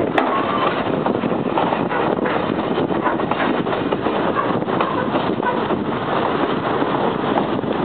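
A train running steadily, heard as a dense rushing noise with heavy wind on the microphone.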